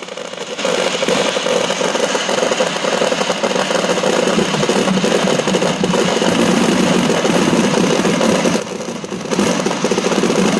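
Many fireworks and firecrackers going off at once in a dense, continuous crackle. There are two brief lulls, one just at the start and one about nine seconds in.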